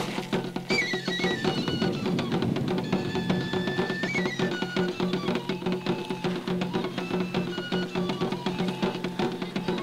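Background music with a busy drum beat over a held low note, and short melodic lines above.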